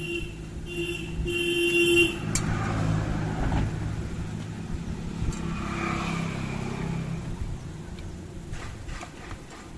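A vehicle horn tooting a few times, two short and one longer, then a motor vehicle running past, its sound swelling and fading away.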